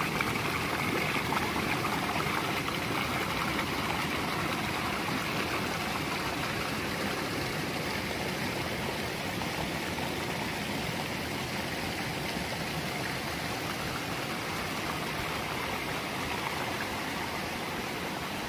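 Shallow mountain stream rushing and splashing over rocks in small cascades, a steady rush of water.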